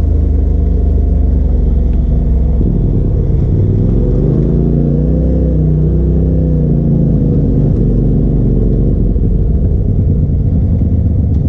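Polaris RZR side-by-side's engine running under way on a dirt trail, heard from inside the open cab as a steady, heavy rumble. About four seconds in the engine note climbs, then eases back down a few seconds later.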